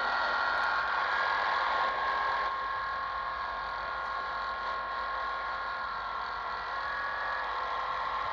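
Shortwave radio receiver tuned to 4625 kHz, the UVB-76 "Buzzer" frequency, putting out static hiss with several steady whistling tones over it. These are strange noises on the channel, not the usual buzz.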